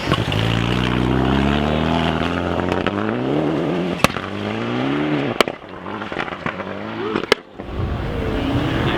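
Rally car engine accelerating hard, its pitch climbing through two gears, then fading as it passes. Three sharp cracks come near the middle, and another car's engine rises near the end.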